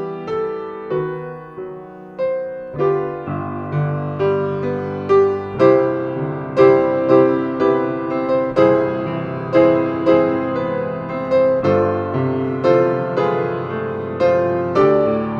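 Piano playing a slow piece: single notes and chords struck about twice a second, each ringing on and fading.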